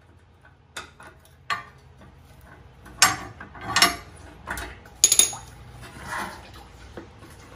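A ratchet and socket clicking on the supercharger heat exchanger's mounting bolt, then louder metal clanks and rattles as the unbolted heat exchanger and its brackets are handled and tilted.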